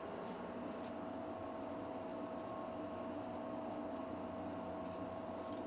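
Steady mechanical hum of running lab equipment, with a constant mid-pitched whine over an even hiss, and a few faint light ticks.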